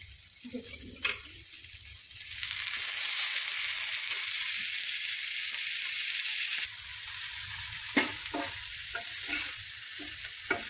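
Masala-coated dry fish sizzling in oil on a flat tawa. The sizzle grows louder about two seconds in and drops suddenly about seven seconds in. From about eight seconds a steel spatula clicks and scrapes on the tawa as the fried fish are turned.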